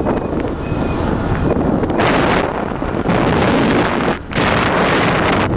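Wind buffeting the microphone of a camera on a moving motorcycle, over the bike's running engine and road noise. The noise drops briefly about four seconds in.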